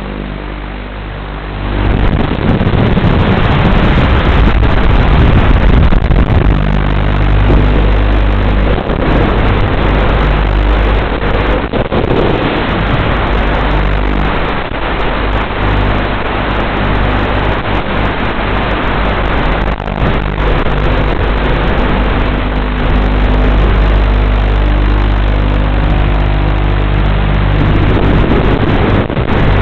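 FPV quadcopter motors and propellers through the drone's onboard microphone: a loud, coarse noise with a low hum that rises and falls as the throttle changes.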